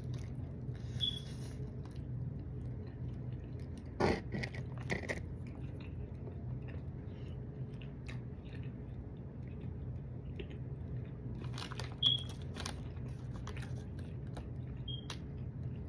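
Close-miked eating of Domino's food: biting and chewing, with crunchy bites around four seconds in and again around twelve seconds, and small wet mouth clicks between, over a steady low hum.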